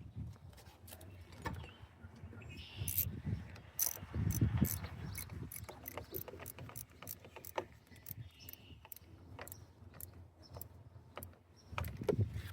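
Hand wrench tightening the nut on a car battery's negative terminal clamp: a string of small metallic clicks with light knocks of metal on metal.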